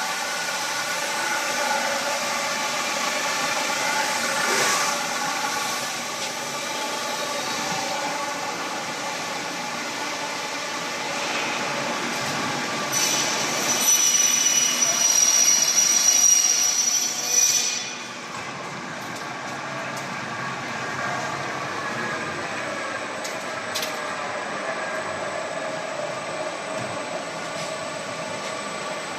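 Production-line machinery for EPS foam garage door panels running with a steady hum of several tones. Partway through, a louder high-pitched whine joins it for about four seconds and then stops abruptly.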